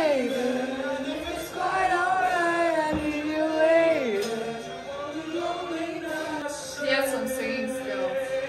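A young woman singing with her head thrown back, holding long notes and sliding down between them.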